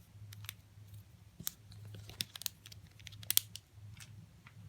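Wacky Track fidget toy links being twisted and snapped, giving irregular sharp clicks, the loudest a little past three seconds in, over a steady low hum.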